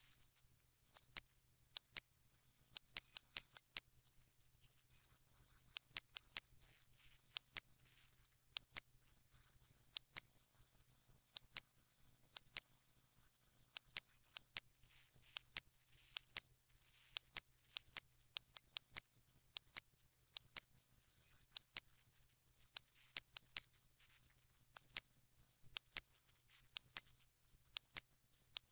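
Computer mouse button clicks, sharp and often in quick pairs, at irregular intervals over a faint steady low hum.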